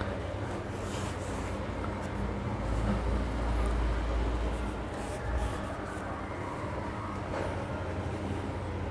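Steady low hum and rumble of background noise, heavier for a couple of seconds around the middle, with a few faint rustles and clicks.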